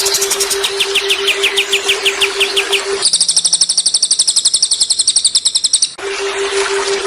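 Songbirds singing in a repetitive masteran recording, with a fast series of sharp chirps. About three seconds in they switch to a very rapid, high, two-pitched trill lasting about three seconds, then the chirping resumes. A steady low hum runs under the chirps but drops out during the trill.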